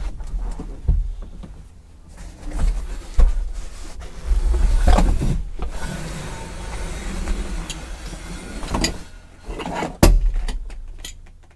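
Ford F-250 Super Duty rear bench seat section being lifted out of the crew cab once unbolted: scraping and rustling with several knocks as it shifts against the floor and cab, and a sharp knock about ten seconds in.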